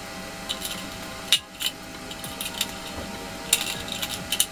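Scattered light clicks and taps of hands fitting a homemade toy car together: chopstick axles through a bottle, with cut-out circle wheels being put on them. The sharpest click comes just over a second in, with a few more near the end.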